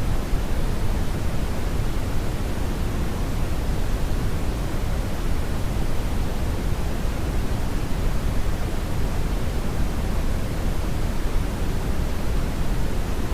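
Steady brownian (red) noise: an even, unchanging rumbling hiss, strongest in the bass and falling away toward the treble.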